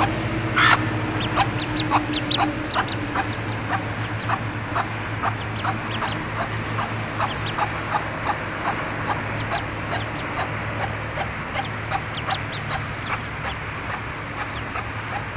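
A hen and her brood of ducklings calling: a rapid string of short, high peeps, about three a second, with the hen's lower clucking early on.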